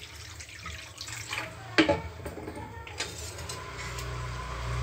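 Water poured into hot cooked masala in a pan to make the gravy, running and sizzling, with a sharp knock about two seconds in.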